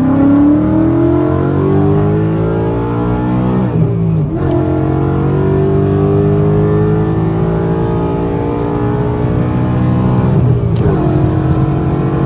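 V8 car engine at full throttle, accelerating hard through the gears. The pitch climbs steadily and drops sharply at an upshift about four seconds in and at another near the end.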